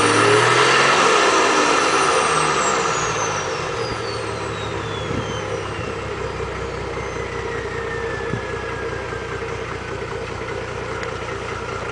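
A vehicle engine finishes a rev and drops back to a steady idle, while a high whine glides slowly down in pitch over several seconds and fades.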